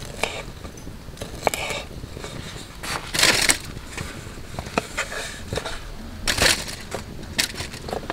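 Folding knife slicing through a sausage onto a wooden cutting board, with light knocks of the blade on the wood. Louder rustling scrapes about three and six and a half seconds in come from the pieces being handled and cleared off the board.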